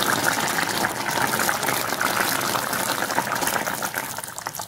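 Fish molee stew boiling hard in a pot: a dense bubbling and popping. Near the end, thick coconut milk is poured in and the bubbling quietens.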